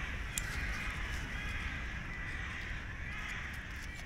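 Crows cawing several times, with a few light clicks and a low steady rumble underneath.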